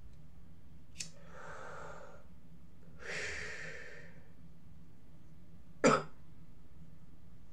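A man breathing audibly: a small click, then a breath lasting about a second, and a louder breath a second later. Just before six seconds comes one short, sharp cough, the loudest sound.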